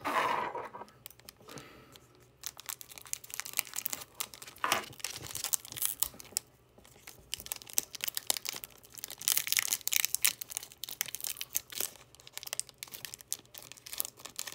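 Foil wrapper of a Panini trading-card pack crinkling and tearing as it is pulled open by hand, a run of crackles with louder bursts at the start, about five seconds in, and again in the later part.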